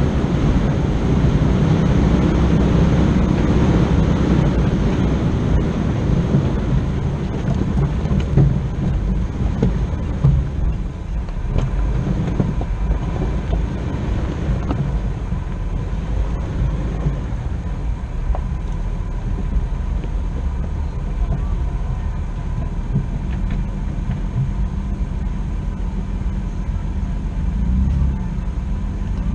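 A vehicle engine running steadily at low revs, fuller for the first few seconds and then settling, with a few scattered knocks.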